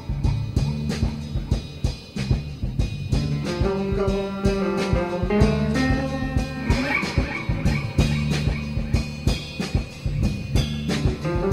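Instrumental band music with a steady drum-kit beat and guitar; no singing.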